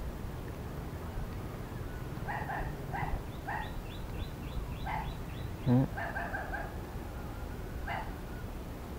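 A dog barking faintly in short runs of barks spaced about half a second apart, with one louder low thud a little past the middle.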